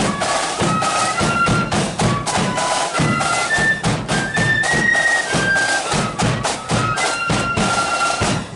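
Marching flute band playing a tune: a high, stepping flute melody over steady beats of bass drum and snare drums. The music stops abruptly at the very end.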